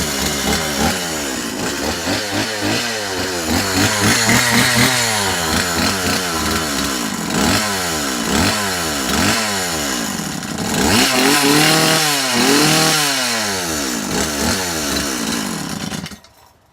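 Stihl two-stroke chainsaw engine running after repair, the throttle blipped so it revs up and down over and over, then stopping abruptly near the end. It keeps running on its own: the repair has worked.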